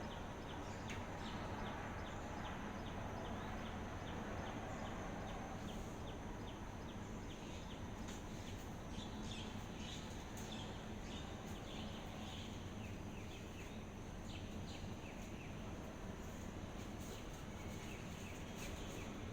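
Steady outdoor background rumble with faint, repeated bird chirps: about two a second over the first several seconds, then a denser cluster of chirps about halfway through.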